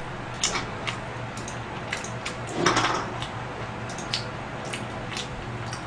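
Close-miked chewing: scattered soft, wet mouth clicks and smacks, with a slightly louder mouthful sound about two and a half seconds in, over a steady low hum.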